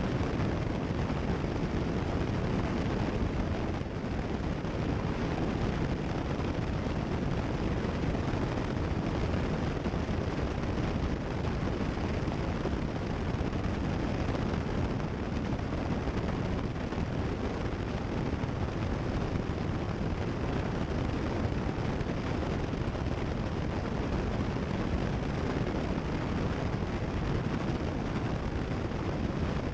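Cessna 172 Skyhawk's piston engine and propeller running steadily in flight during the climb-out after takeoff: a dense, even drone that does not change.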